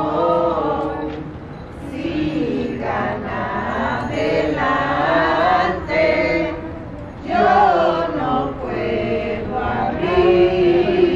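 A group of people singing a traditional posada hymn together: the song in which the pilgrims ask for shelter at a house and are refused. It comes in phrases with short breaks and ends on a long held note.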